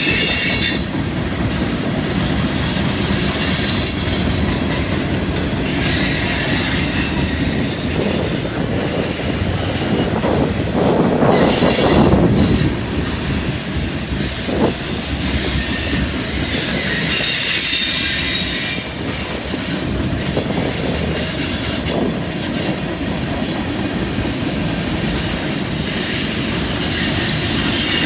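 Freight train cars rolling through a curve, their wheels squealing in high-pitched waves that come and go over the steady rumble and clatter of the train.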